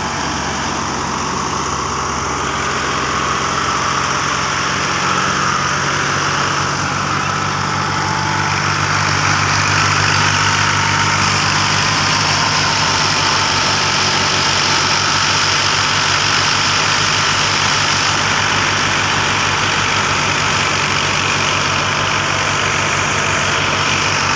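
Tractor engine running steadily while it drives a wheat thresher, with a continuous machine whir above the engine's drone. It grows a little louder over the first several seconds, then holds level.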